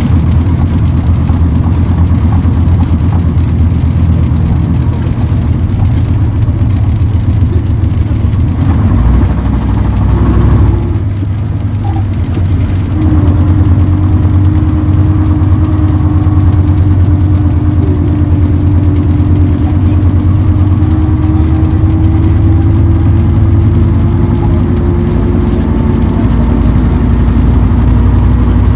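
Bristol K5G double-decker bus's five-cylinder Gardner diesel running under way, heard from inside the saloon as a steady low drone. After a short lull about ten seconds in, a steady whine joins it and rises slightly in pitch until near the end.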